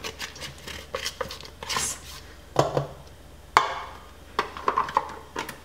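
Chopped toasted almonds being scraped and tipped from a plastic bowl into a stainless-steel mixing bowl of flour: a run of light clicks, taps and rustling, with a sharper knock about three and a half seconds in.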